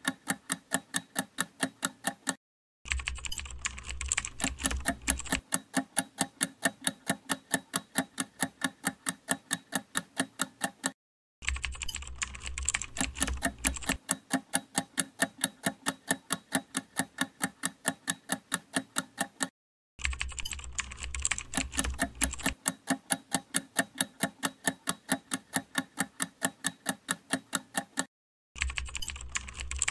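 Clock-ticking countdown-timer sound effect: an even, rapid run of sharp ticks, several a second. It drops out briefly three times, and after each dropout a low rumble with a hiss runs under the ticks for about two and a half seconds.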